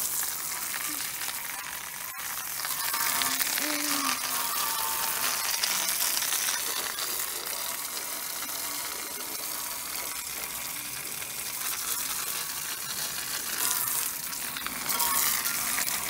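Garden-hose spray hissing as it hits the fan grille and coil fins of a central air conditioner's outdoor condenser unit, washing off pollen and dirt. The hiss swells and eases as the stream is moved around.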